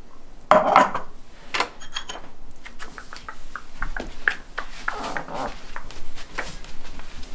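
A metal spoon clinking and scraping against a glass jar, with a few ringing clinks about two seconds in, followed by scattered light knocks and bare footsteps. A short loud burst comes about half a second in.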